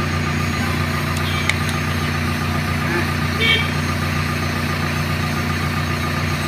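JCB 3DX backhoe loader's diesel engine idling steadily, with a single light metallic clink about halfway through.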